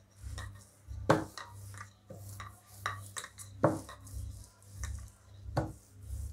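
Wooden rolling pin rolling and pressing a thin sheet of sesame-jaggery gajak on plastic wrap over a wooden board. The sound is a string of irregular soft knocks and crinkles, over a steady low hum.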